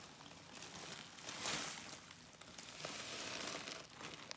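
Zip-top plastic bag crinkling as crushed Oreo crumbs are poured and shaken out of it into a bowl of cookie dough, loudest about a second and a half in.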